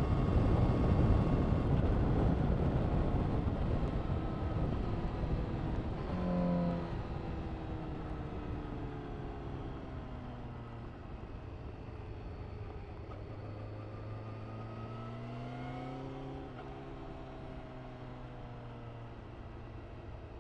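Honda CBR1000RR-R SP FireBlade's inline-four engine through an Akrapovic exhaust, loud at first and fading away, its note sliding down and then up again as the revs change.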